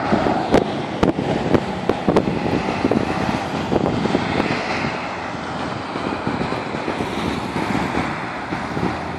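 Road traffic driving past, with a pickup truck going by close at the start. A series of sharp clicks sounds over the first three seconds. The traffic noise swells around four to five seconds in, then settles to a steady hum.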